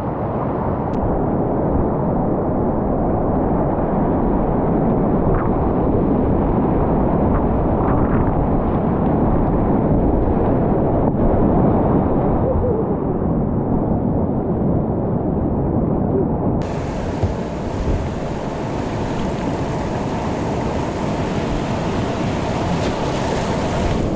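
Whitewater rapids rushing around a kayak, a loud, steady churning of water heard from close by. About two-thirds of the way through it changes suddenly to a brighter, hissier rush.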